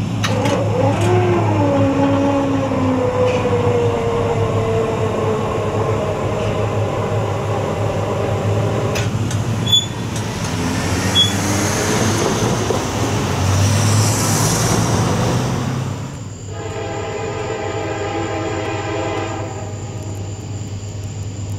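Diesel locomotive horn on an approaching Norfolk Southern freight train. A more distant horn wavers and slides slightly in pitch through the first half. About three-quarters in, a louder multi-note chord horn blows one long blast, and another starts right at the end, as for a grade crossing.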